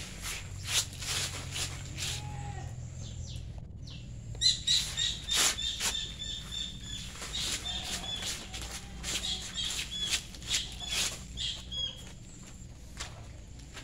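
A hand brush swept in quick, irregular strokes over a cast cement pillar's base, scraping off loose cement to tidy it before polishing. A bird chirps repeatedly in the background from about four and a half seconds in.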